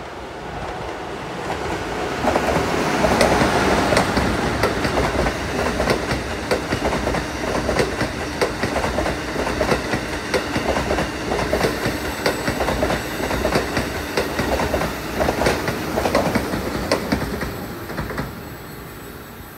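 Amtrak Acela Express trainset passing at restricted speed, its wheels clacking rhythmically over the many rail joints in the track under replacement. It builds about two seconds in, holds as the cars roll by, and dies away near the end.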